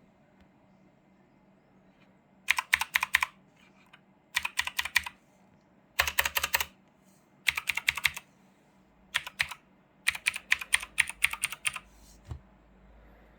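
Keychron C2 mechanical keyboard with clicky blue switches being typed on: bursts of rapid keystrokes with short pauses between, starting a couple of seconds in, and a single keystroke near the end.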